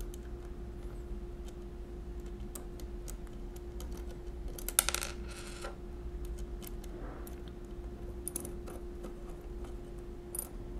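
Light metallic clicks and clinks of a small wrench working a screw and nut on the steel carriage-lock parts of a Monroe mechanical calculator, with a short louder clatter about five seconds in. A faint steady hum runs underneath.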